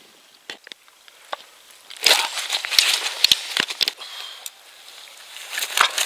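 Crackling, rustling handling noise from a landing net and unhooking mat as a large mirror carp is handled on them, with a rapid run of sharp knocks and slaps. It starts about two seconds in, eases off, and picks up again near the end.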